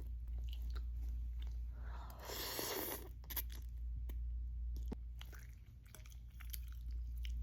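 Close-up chewing and eating of ramen noodles: scattered small mouth clicks, with a rush of noise lasting about a second just after two seconds in. A low steady hum runs underneath.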